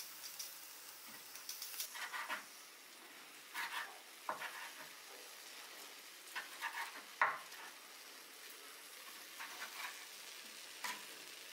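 Food sizzling in a hot pan while being stirred, with a spoon scraping and knocking against the pan several times.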